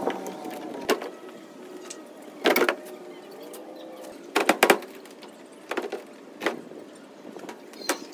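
Plywood shipping crate panels being pulled off and handled, giving a series of wooden knocks and clatters every second or two. The loudest come about two and a half and four and a half seconds in.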